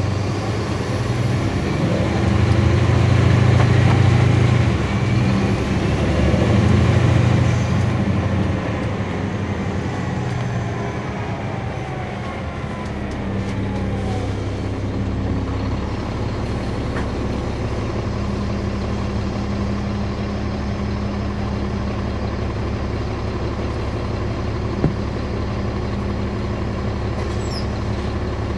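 Caterpillar C13 diesel engine and ZF Ecomat six-speed automatic transmission of a NABI 40-SFW transit bus, heard from the back seat. The engine pulls hard twice in the first several seconds with transmission whine rising and falling, then settles into a steady, even running sound, with a single click near the end.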